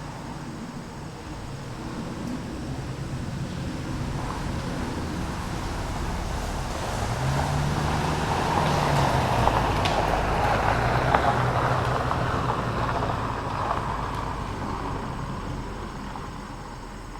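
A car passing by on a road: tyre noise and engine hum swell as it approaches, peak about ten seconds in, then fade as it drives away.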